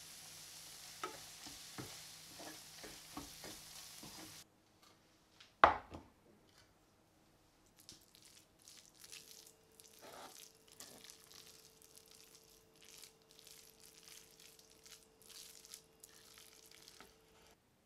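Caramelized onions with balsamic vinegar sizzling in a pot while a wooden spoon stirs them, with small clicks and scrapes. The sizzle stops about four seconds in, and a single sharp knock follows. Then come soft, sticky scrapes and squelches of the wooden spoon turning the jammy, deep golden-brown onions in the pan.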